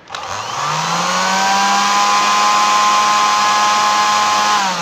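Juicer-blender motor switched on with the direct-run push button: it spins up over about a second, runs steadily with a whine, and winds down after it is switched off near the end. It is running properly on this button.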